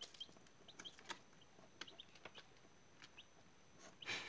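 Faint, scattered peeping of a brood of chicks a few days old, with a few light taps and a brief scratchy rustle near the end.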